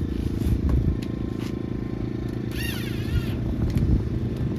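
A steady low motor drone, engine-like, with a few faint knocks and a short high warbling sound a little past the middle.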